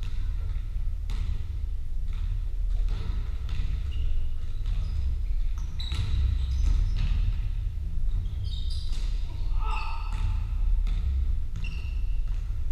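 A basketball bouncing repeatedly on the wooden floor of a large sports hall during play, with scattered short high squeaks from players' shoes, clustered about six seconds in and again toward ten seconds. A steady low rumble sits underneath.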